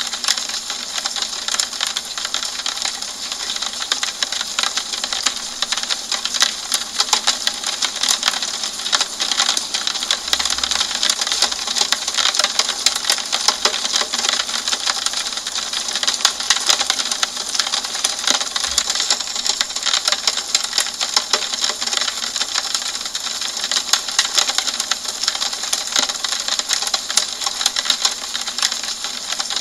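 Steady rain on a window pane: a dense patter of drops tapping the glass over a constant hiss.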